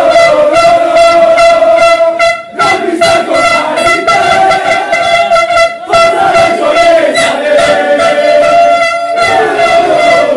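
Plastic stadium horns blown in long steady blasts, the note held and broken off briefly a few times, over men shouting and chanting.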